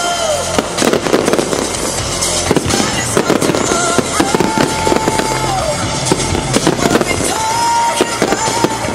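Fireworks display: a dense run of bangs and crackling from aerial shells bursting. Music with long held notes plays underneath.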